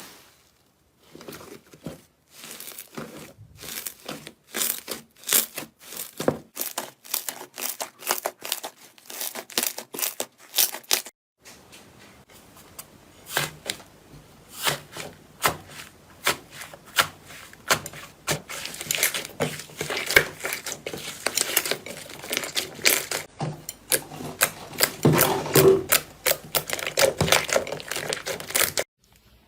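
Slime being squeezed and poked by hand, giving a dense run of irregular sharp pops, clicks and crackles as air pockets burst. It breaks off briefly about a second in and again about eleven seconds in.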